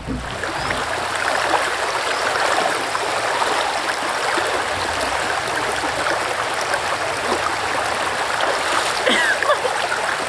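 A shallow river running over stones, a steady rush of flowing water, with a few brief high chirps near the end.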